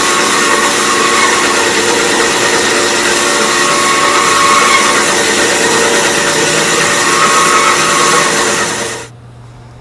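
JMT WK 500DSA hydraulic-feed metal-cutting band saw running, a dense steady hiss of the blade with several steady tones under it. It cuts off abruptly near the end, leaving a low hum.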